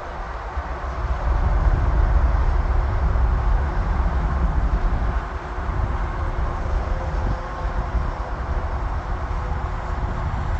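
Jet airliner's engines during its landing: a loud, steady rumble with a hiss, growing louder about a second in.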